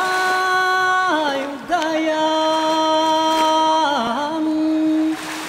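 Background music: a single sung or chanted melodic line of three long held notes, joined by short ornamented slides.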